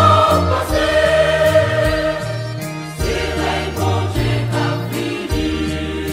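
Gospel music with choir voices over a stepping bass line and a steady percussion beat.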